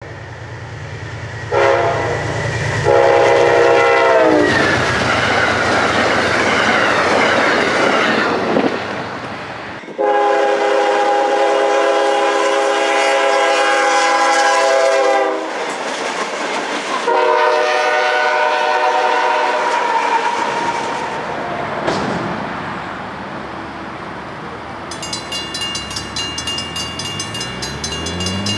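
Locomotive horns in several cut-together clips: long multi-tone horn blasts over the rumble of a passing train, the pitch dropping as the first train goes by, then further horn sequences from a freight locomotive. Near the end, mechanical grade-crossing bells start ringing rapidly.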